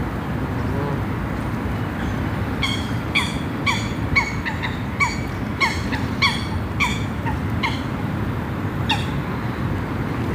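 Canada geese honking: a run of about a dozen short, sharp honks, roughly two a second, beginning about three seconds in, with one last honk near the end. A steady low rumble runs underneath.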